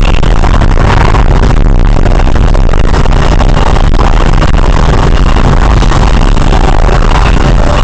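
Very loud electronic music over the steady running noise of a car driving.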